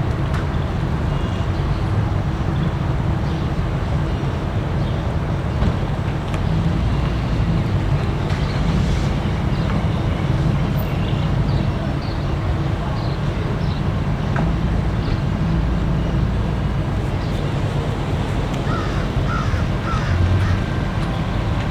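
Steady low rumble of vehicle noise, with a few short higher calls standing out near the end.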